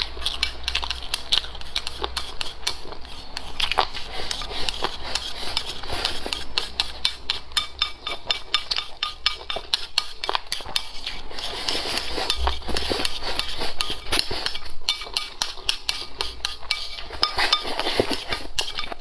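Wooden chopsticks clicking and scraping rapidly against the rim of a ceramic bowl as rice is shoveled from the bowl held at the mouth, picked up close by a clip-on microphone. The taps come many to the second and grow busier in the second half.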